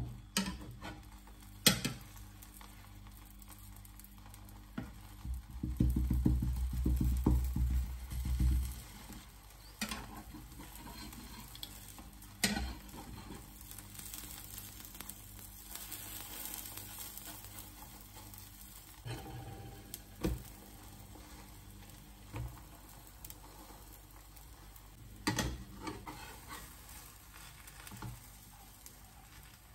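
Beaten-egg omelette sizzling faintly in a nonstick frying pan while a spatula scrapes and taps against the pan, with a handful of sharp knocks spread through. About six seconds in comes a couple of seconds of low rumbling knocks.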